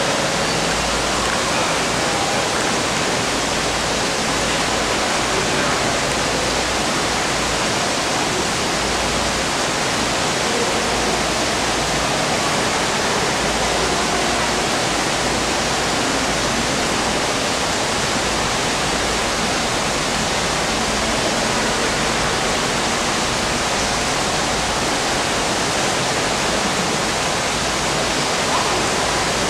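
Steady rushing of running water in a swimming pool, an even hiss that does not let up.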